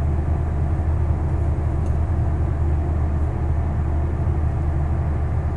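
Steady low drone, a constant background hum with no distinct events.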